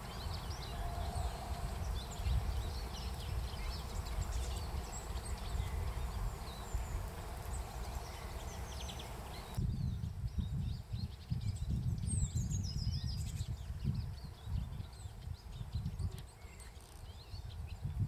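Small songbirds chirping and twittering in short, high calls over a low rumble. The background changes abruptly about halfway through.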